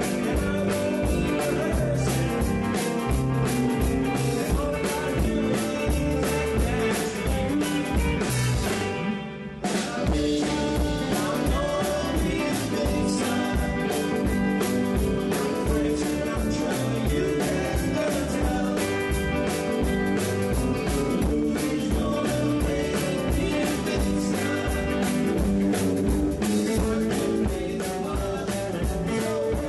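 Rock-and-roll style music with guitar and a steady beat, dipping briefly about nine seconds in.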